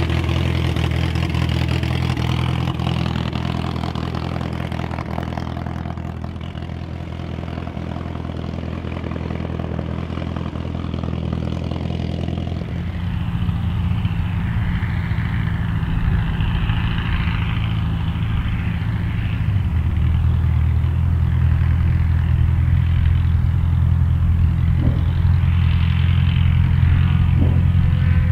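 Onex light aircraft's engine and propeller running during ground taxi tests, a steady drone that changes about halfway through and grows louder over the last third.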